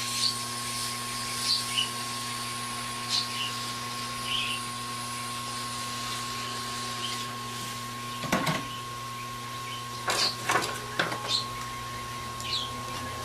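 Hot-air rework station blowing steadily with a constant hum and hiss, heating a MacBook Air display to soften the adhesive under its glued-on bar. Short high squeaks come through every second or so, and a few sharp clicks of tools on the display come around eight seconds in and again between ten and eleven seconds.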